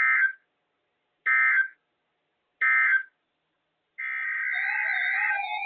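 Three short bursts of Emergency Alert System data tones, the warbling end-of-message code sent three times to close the tornado warning. About four seconds in, a continuous sound with a wavering tone starts.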